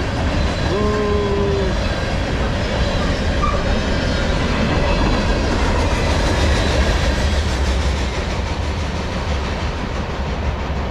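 Loaded freight cars, tank cars and covered hoppers, rolling past on the rails with a steady heavy rumble and wheel clatter, easing off a little near the end as the tail of the train pulls away.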